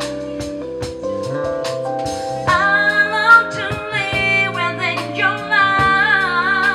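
Live band performance: keyboard chords and drum kit with cymbal strokes play alone at first, then a woman's singing voice comes in about two and a half seconds in and carries the melody over the band.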